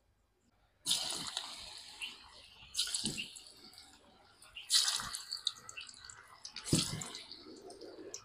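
Lumps of cabbage bhaji (pakoda) batter dropped by hand into hot oil in a steel kadhai: four sudden sizzles about two seconds apart, each fading into the bubbling of deep-frying.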